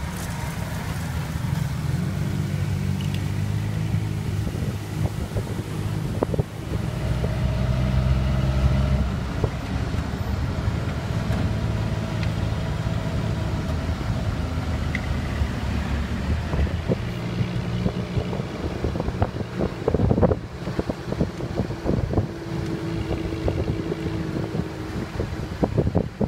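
Tuk-tuk's engine running as it rides through city traffic, its note shifting every few seconds with the throttle.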